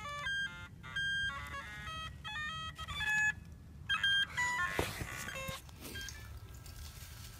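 Metal detector's target-ID tones: a run of short electronic beeps jumping quickly between several pitches as the coil is swept over a dug hole with a coin in it, stopping about four seconds in. A brief rustle of handling follows.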